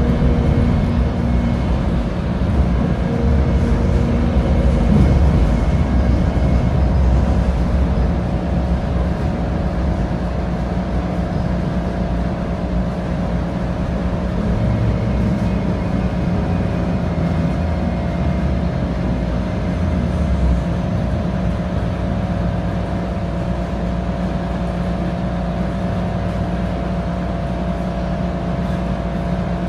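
Inside a Bombardier Flexity light-rail car slowing into a station. The low rumble of wheels on rail eases off after the first several seconds, leaving the car's steady equipment hum as it comes to a stop.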